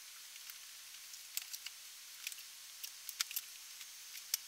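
Faint, scattered light clicks and taps of books being pulled from a wooden bookshelf and handled, at irregular moments, over a faint steady hiss.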